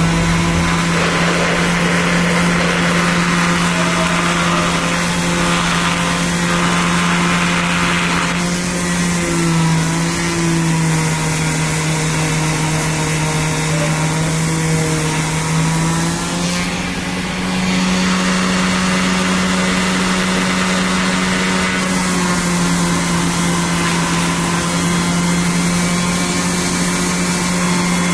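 Electric sander running steadily on hardwood decking, its motor hum shifting slightly in pitch a few times, with a harsher rasp of abrasive on wood over the first several seconds.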